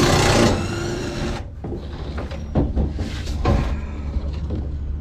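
Cordless drill driving a screw into the sheet-steel side piece of a farm wagon. The drill runs steadily and stops about a second and a half in. After that come scattered knocks and taps of hands and parts on the metal, over a steady low hum.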